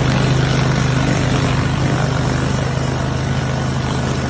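A loud engine running steadily close by, with a constant hum and a fast, even pulsing.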